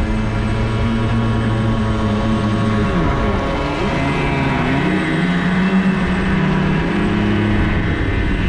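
Engine of a radio-controlled model boat running, its note holding steady, dipping sharply about three seconds in, then climbing back up and holding.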